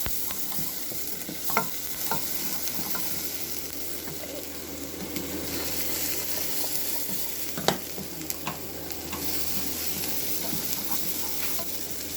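Chopped onion with ginger, garlic and ground spices sizzling as it fries in a pan, being stirred, with a few sharp knocks of the utensil against the pan.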